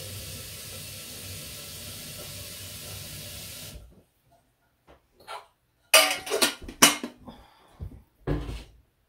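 Steady hiss of water heating toward the boil, which cuts off abruptly a little before the middle. Then a series of sharp knocks and clatters, the loudest cluster about two-thirds of the way through.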